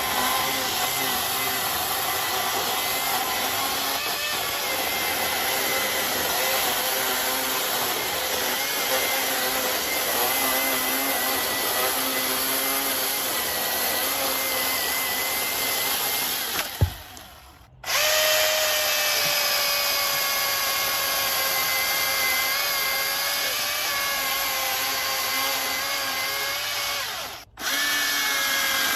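Milwaukee M18 Fuel 16-inch battery chainsaw running as it cuts a branch: a steady electric motor whine over chain noise. Just past the halfway point it winds down with a sharp click and starts up again about a second later, and near the end it stops for a moment and restarts.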